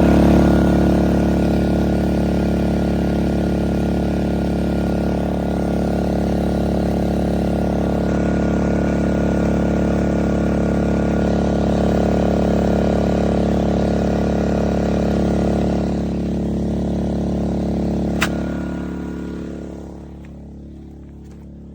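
Small portable generator engine running steadily at a constant speed. About 16 s in it dies away over a few seconds, with one sharp click partway through.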